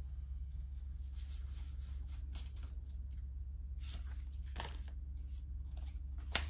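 Pokémon trading cards being slid off a hand-held stack and flipped one by one, a few soft card swishes and clicks over a steady low hum.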